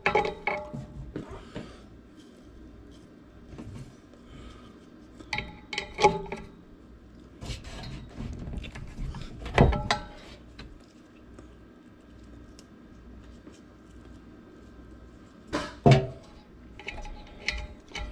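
Metal knocks and clanks with a short ringing tone as the squirrel-cage blower wheel hub and motor shaft are worked by hand inside the sheet-metal blower housing. The loudest knocks come about ten seconds in and again near sixteen seconds, with lighter clicks and rattles between.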